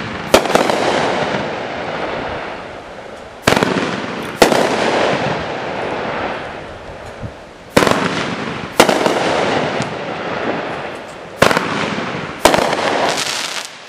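200 gram consumer firework cake (Mad Ox Dark Matter) firing: sharp bangs in pairs about a second apart, a pair every three to four seconds. Each pair is followed by a crackle that fades over several seconds.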